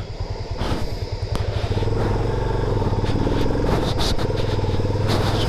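Single-cylinder 250 cc motorcycle engine running. It picks up revs about two seconds in and pulls steadily on a muddy climb, with a few short clicks over the top.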